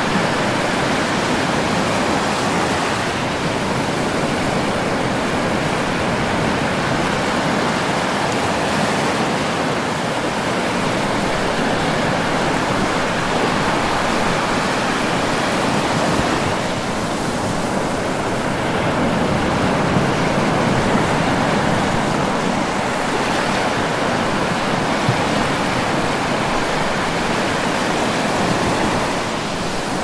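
Ocean surf breaking on a beach: a continuous dense wash of waves with no clear gaps between breakers, swelling slightly in loudness now and then.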